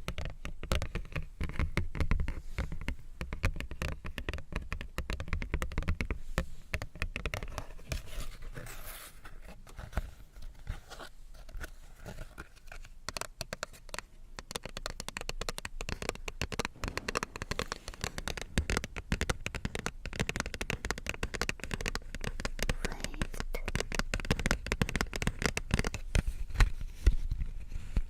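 Fingers scratching and tapping on a paper card, a dense run of quick scratches and light taps, with a longer scrape about eight seconds in.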